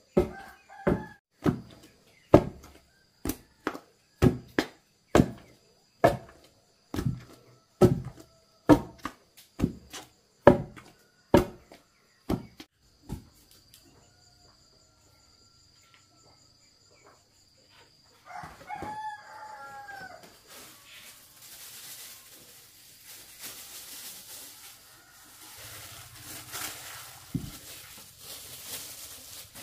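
Long wooden pestle pounding cassava in a wooden mortar, a dull thud about once a second, which stops about 13 seconds in. A rooster crows once a few seconds later, followed by soft rustling as gloved hands lift the pounded cassava dough.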